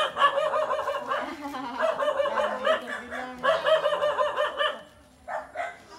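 A dog barking rapidly, in three quick runs of yaps with short breaks between them. It stops about five seconds in.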